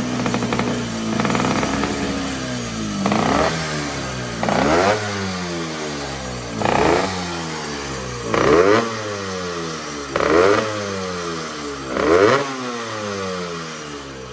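1972 MZ 250 RE factory racing motorcycle's two-stroke engine being warmed up: a steady idle for about three seconds, then six sharp throttle blips about two seconds apart, each revving up quickly and falling back slowly.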